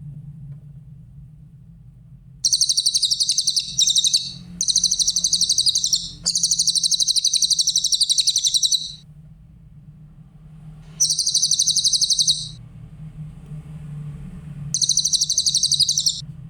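Cililin bird singing in five loud, fast, high-pitched trilled phrases of rapidly repeated notes, each lasting one to two and a half seconds, with short pauses between them.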